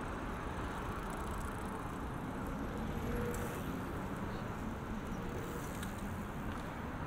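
Steady hum of city road traffic, with engine rumble and no single vehicle standing out.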